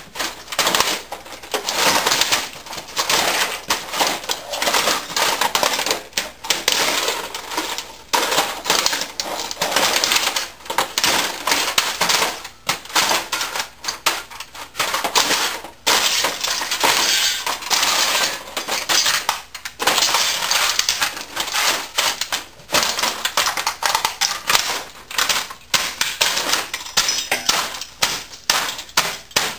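Heavy Wesco leather boots stomping and grinding on a wrecked 1980s word processor: its plastic housing and parts crack and crunch under the soles, with broken pieces clattering on a concrete floor in rapid, irregular strikes.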